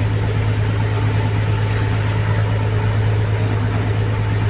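Boat engine running steadily, a constant low drone with the rush of noise over it.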